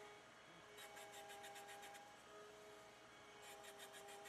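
Faint rasping scrape of a 2-inch PVC pipe ring being turned by hand in a snug hole in a wooden jig, in two short bursts of about eight strokes a second, over a faint steady hum.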